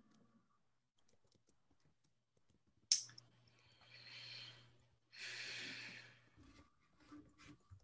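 A sharp click, then two long breathy sounds close to a computer microphone, like a person breathing in and letting out a sigh.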